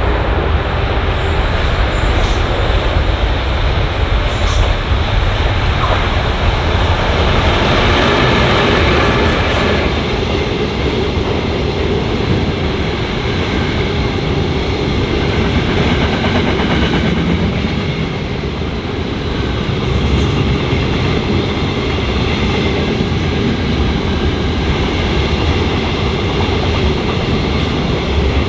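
Diesel-hauled freight train passing: the locomotive goes by in the first ten seconds or so, then a long string of grain hopper wagons rolls past with a steady clatter of wheels on the rails.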